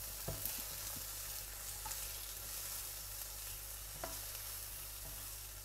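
Diced zucchini sizzling in oil in a non-stick frying pan, with a couple of light taps from a spatula moving the pieces, one about four seconds in.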